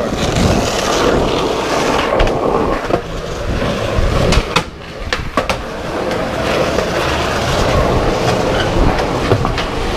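Skateboard wheels rolling over concrete pavement: a steady rumble with sharp clacks now and then. The rumble dips briefly a little before halfway.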